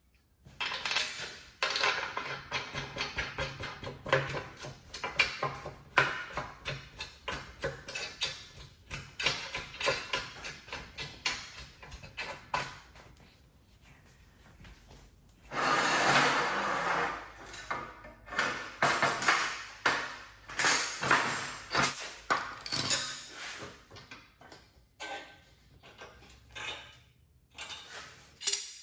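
Steel parts being handled and worked: a long run of irregular sharp metal knocks and clanks, with a denser stretch of scraping noise lasting about two seconds around the middle.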